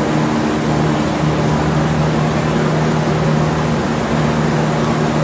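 A steady machine hum with a rushing noise over it, holding one even pitch with no change, like a fan or motor running close by.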